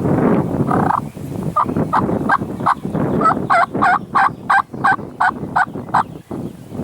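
Turkey yelping: a steady run of about a dozen short, evenly spaced yelps that grow louder toward the end, with wind on the microphone at the start.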